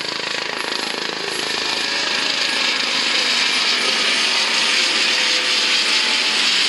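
US Coast Guard MH-65 Dolphin helicopter flying low overhead, its rotor chop and turbine whine steady and growing louder from about two seconds in as it comes close.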